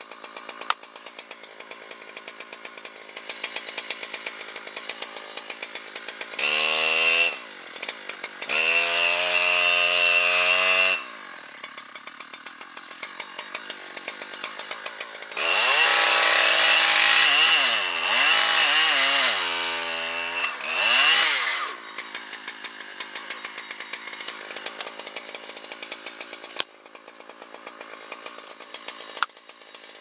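Husqvarna two-stroke chainsaw idling with a rapid, steady ticking, then revved up three times. The first rev is short and the second longer. The longest comes past the middle, where the pitch swings up and down several times before it drops back to idle.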